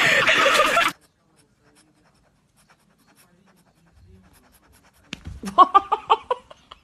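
A woman shrieks for about the first second, then near silence. About five seconds in comes a rapid run of short, high cries mixed with sharp knocks.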